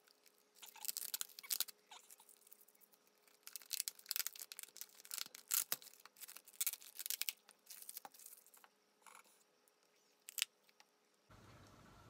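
Thin clear plastic packaging crinkling and crackling in quick irregular clusters as a small potted plant is worked free of its plastic container, then a couple of single sharp clicks near the end.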